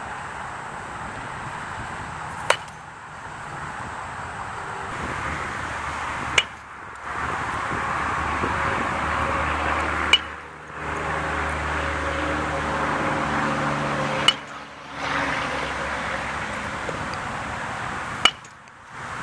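A baseball bat hitting pitched balls: five sharp cracks about four seconds apart, over a steady background hiss.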